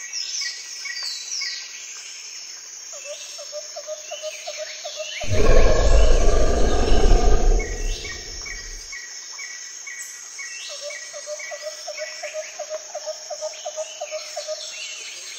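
Jungle ambience of birds chirping in short repeated calls and a pulsing insect-like trill. From about five to nine seconds in, a loud, deep rumbling noise rises over it and stops.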